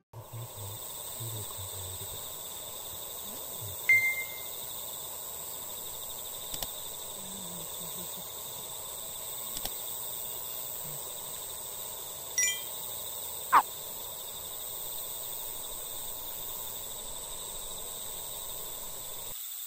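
Evening outdoor ambience: a steady high-pitched insect chorus, with a few short sharp chirps over it, the loudest about four seconds in and near fourteen seconds.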